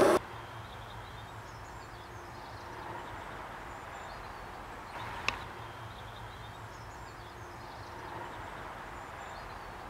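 Faint steady background noise with a few faint high chirps, and a sharp click about five seconds in and another right at the end.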